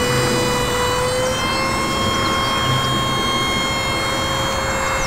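Truck-mounted aerial bucket lift running: a steady whine from its motor and hydraulics over a low engine rumble, stepping slightly up in pitch about a second and a half in.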